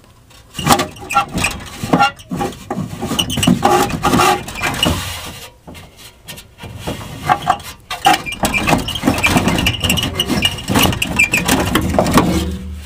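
Air handler's sheet-metal blower assembly being slid out of its cabinet: irregular scraping and clanking of metal on metal, with a high scraping squeal lasting a couple of seconds in the latter half.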